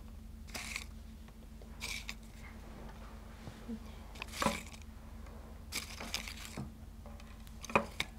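Folded paper slips rustling and crinkling as a hand picks them out of a small bowl: a handful of short, separate rustles over a steady low hum.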